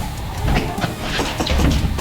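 Background music with a heavy bass and a drum beat, in a gap between sung lines.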